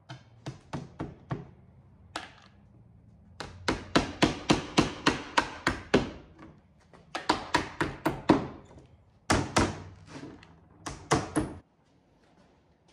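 Claw hammer striking small nails along the edge of a thin wooden panel: quick light blows, about four or five a second, in runs of several strikes with short pauses between, stopping shortly before the end.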